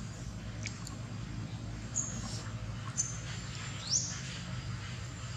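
Short, high-pitched animal chirps: faint peeps about two and three seconds in, then a sharp chirp that rises quickly in pitch near the end, over a steady low background hum.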